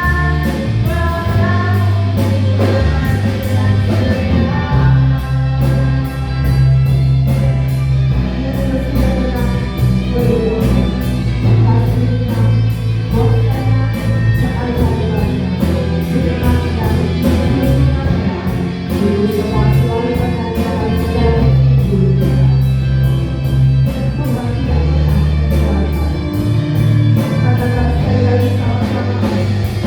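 Praise band with singers performing a worship song: group vocals over a bass line and a steady drum beat.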